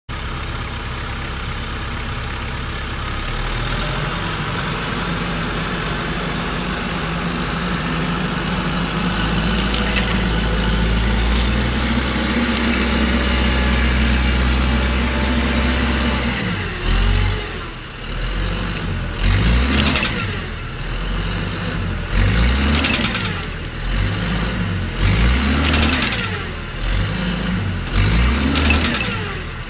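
TYM 574 tractor's diesel engine working under load, running steadily for about sixteen seconds, then rising and falling in pitch and loudness every second or two as the machine pushes against a large tree stump.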